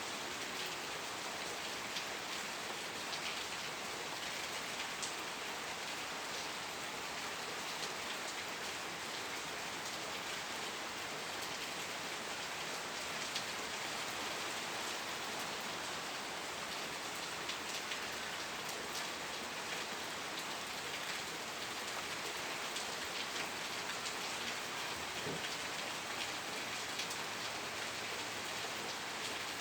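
Steady rain falling on a surface, an even hiss made of many individual drop ticks, with no pauses.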